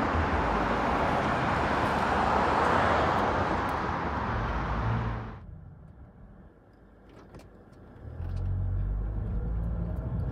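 Steady rushing noise of road traffic that cuts off sharply about five seconds in. About eight seconds in, a low steady car engine rumble heard from inside the cabin takes over.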